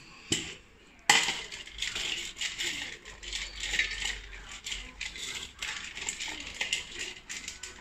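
A stainless steel bowl of dry kibble set down on the floor with a sharp clank about a second in, then two puppies eating from it: kibble clicking and rattling against the metal bowl in quick, irregular bursts.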